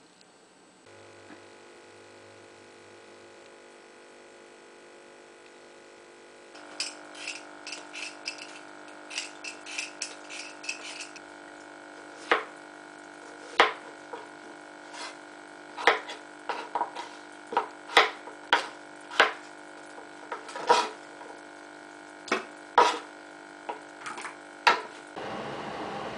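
Kitchen knife cutting a potato on a plastic cutting board: a run of sharp knocks, roughly one every half second to a second, after lighter quicker clicks, over a steady low hum. A steadier hiss takes over near the end.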